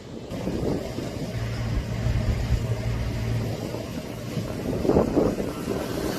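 Wind rumbling on the microphone, with a steady low engine hum for a couple of seconds in the middle.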